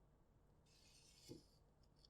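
Near silence, with a faint brief scraping and one soft tap about a second and a third in, like small parts being handled on a desk.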